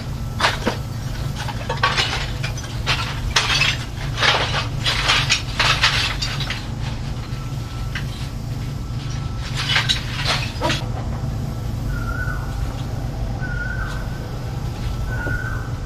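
A metal hand tool digging and scraping into a heap of earth and rubble, in irregular sharp strokes for about eleven seconds. After that a short high chirp repeats about every second and a half, over a steady low hum.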